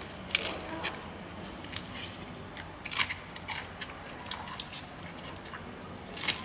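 Giant panda chewing a fresh bamboo shoot: irregular crisp crunches and snaps of the fibrous shoot breaking between its teeth, the loudest near the end.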